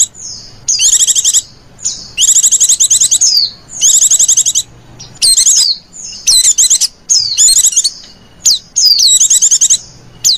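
White-eye (pleci) song: rapid, high-pitched chattering trills in bursts of about a second, repeated with short pauses, played as a lure call to draw wild white-eyes.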